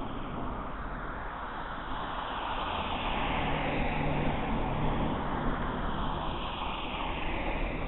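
Road traffic passing on a city street: a steady wash of tyre and engine noise that swells and eases as vehicles go by, with a low engine hum for a couple of seconds in the middle.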